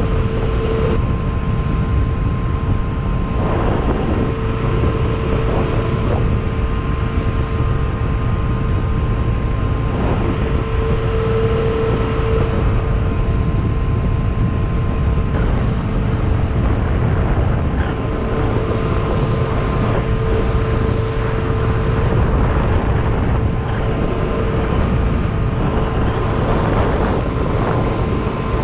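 Boat underway at cruising speed, about 26 knots: the 1989 MerCruiser 350 carburetted V8 running at steady cruising revs, a constant drone, with wind on the microphone and the hull's rush over the water.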